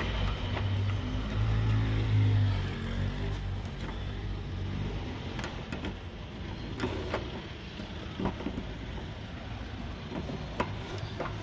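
Scattered sharp clicks and knocks of a tool working the fuel pump's retaining lock ring as it is turned tight, over a low vehicle-like drone that is loudest in the first few seconds.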